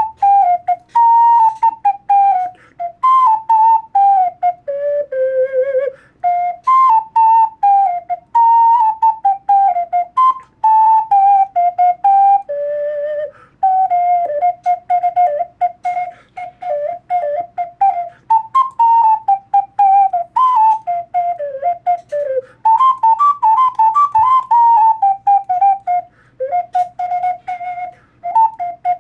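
3D-printed plastic ocarina played solo: a quick melody of many short, separately tongued notes with a pure, whistle-like tone, broken by a few longer held notes.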